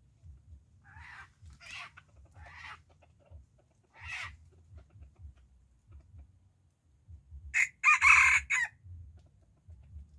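A rooster clucks four short times in the first half, then crows once, a short choppy cock-a-doodle-doo about eight seconds in that is the loudest sound.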